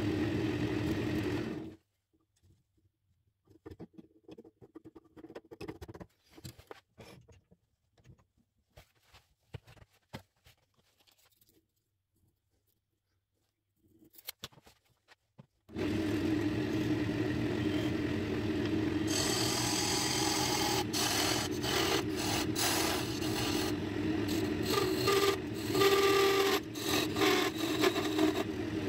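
A wood lathe running with a steady hum, switched off about two seconds in, followed by a long quiet stretch of faint clicks and rustles while a tape measure and pencil mark the mahogany spindle. About sixteen seconds in the lathe starts again, and a few seconds later a turning tool cuts a groove into the spinning mahogany spindle, a scraping cut with scattered sharp ticks.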